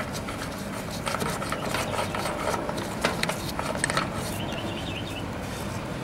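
Rubbing and light clicking as gloved hands handle the brass caps and fittings on an air-conditioner condenser's service valves, over a steady outdoor hiss.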